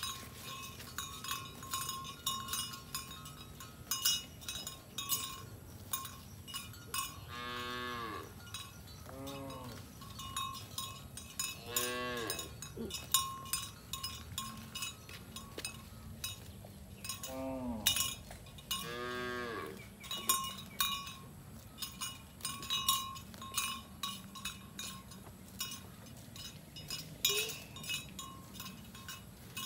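Cattle mooing, about five calls spread through the middle of the stretch. Under them, cow bells clink on and off without pause as the herd moves and grazes.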